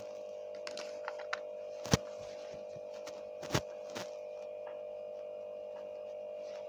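A few sharp clicks and taps of small plastic toy figures being handled and set down on a table, the loudest about two seconds in and again a second and a half later, over a steady faint tone.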